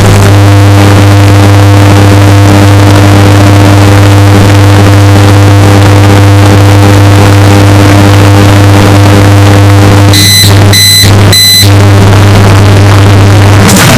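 Sound effects boosted until they clip and distort: a steady low drone throughout, interrupted about ten seconds in by three short, evenly spaced high beeps.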